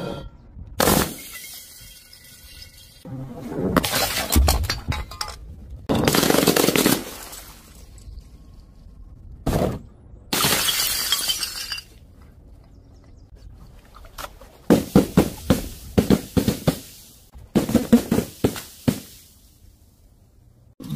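A run of separate smashes and crunches as objects drop onto a hard floor, including breaking glass, with quiet gaps between them. In the last few seconds comes a quick string of sharp pops and cracks as powder-filled balls burst on a board of spikes.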